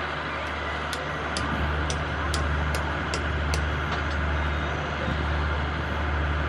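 Alsthom diesel-electric locomotive's engine running with a steady low hum as it rolls slowly toward the camera. About seven light, sharp ticks sound between one and four seconds in.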